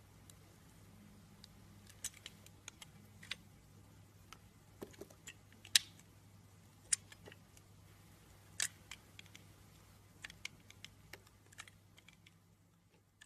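Bar soap being cut with a blade: irregular, scattered crisp clicks and crackles, the loudest about six seconds in, over a faint steady low hum.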